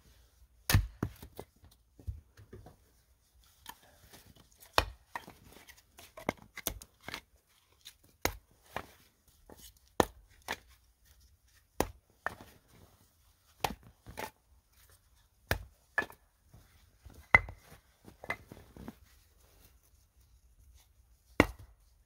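Sharp wooden knocks every second or two: pieces of split firewood clacking against each other as they are gathered into an armful.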